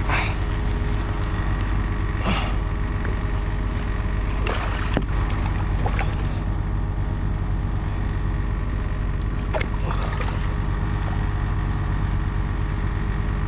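A hooked carp splashing and thrashing at the water's surface several times as it is played in toward the landing net, over a steady low rumble.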